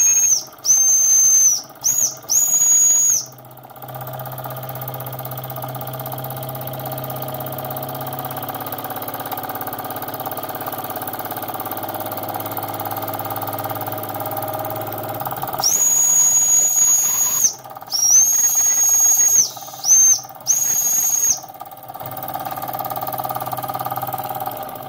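Steam whistle on a Jensen Model 70 toy steam engine blown in short high-pitched toots, four at the start and four more about sixteen seconds in. Between the toots the little steam engine runs with a steady hum.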